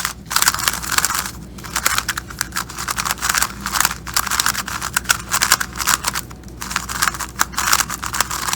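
A new magnetic 3x3 speedcube being turned continuously by hand: a fast, irregular run of plastic clicks and swishes as the layers turn and snap into place.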